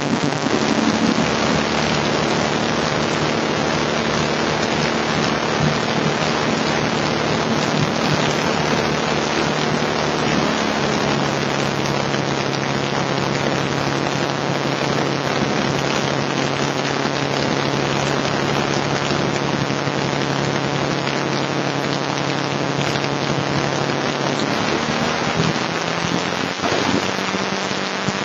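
Beechcraft Bonanza A36's six-cylinder piston engine and propeller running at taxi power, heard from inside the cabin as a steady drone under a heavy hiss. The engine note shifts slightly about 11 seconds in and again near the end.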